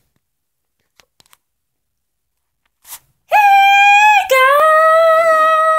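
A person's voice howling like a dog. One long high note starts a little past halfway, breaks off after about a second, and a slightly lower note follows and is held. Before it, near silence with a few faint clicks.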